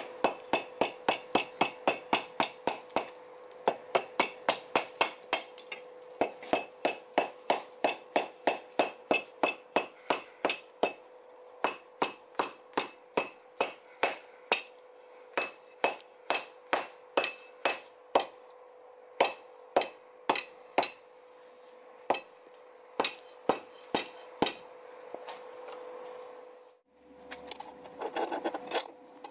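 Hand hammer striking hot steel on an anvil in quick runs of about three ringing blows a second, with short breaks between runs; the hammering stops a few seconds before the end. A steady hum runs underneath.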